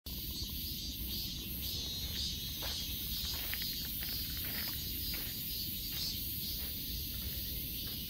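Insects chirping in a high-pitched chorus that pulses about twice a second, over a steady low rumble.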